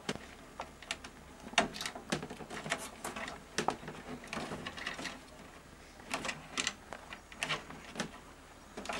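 Irregular light clicks and taps as a cable connector is handled and pushed into place, connecting the CD-ROM drive to the motherboard inside a PC case.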